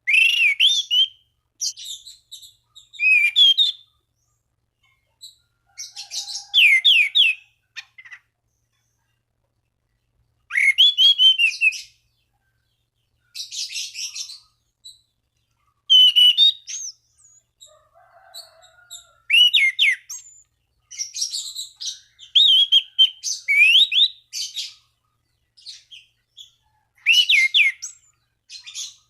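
Anis cendana thrush singing loudly in repeated short phrases of fast rising-and-falling whistles mixed with high twittering, each phrase a second or two long with brief pauses between. This is a male's full challenge song, used as a lure to provoke rival birds into singing.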